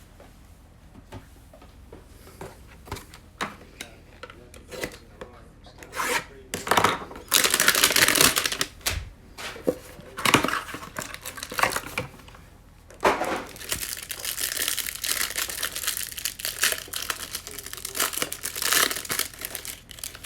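Trading-card packaging being opened: a few light handling clicks, then loud ripping and crinkling about halfway through, and steady crinkling of wrapping through the last third, as the next hanger box of cards is torn open.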